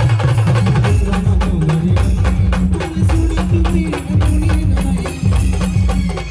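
Brass band playing an instrumental passage: fast, even drum and percussion strokes with tambourine over a strong, moving bass line and a melody line.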